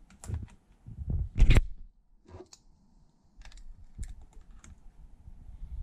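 Spring-loaded crocodile clips clacking as they are clipped onto the terminals of a small motorcycle battery to charge it, with scattered clicks and knocks from handling the leads. The loudest knock comes about one and a half seconds in, followed later by a cluster of lighter clicks.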